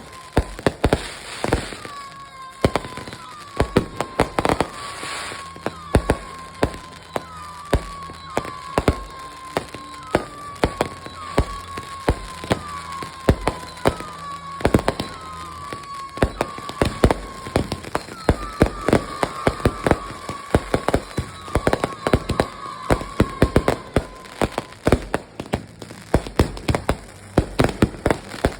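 Fireworks going off in a rapid series of sharp bangs and crackles. Through most of it a short falling tone repeats about once a second, then stops near the end.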